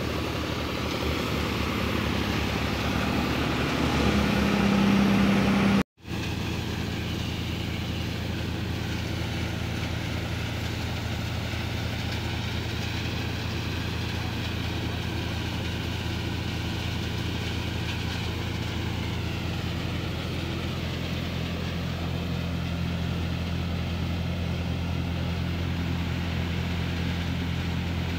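Tractor engine running steadily, driving a wheat thresher through its PTO shaft, with the thresher's drum and belt pulleys turning as wheat is fed in. The sound swells a little louder about four seconds in, cuts out abruptly for an instant about six seconds in, then runs on evenly.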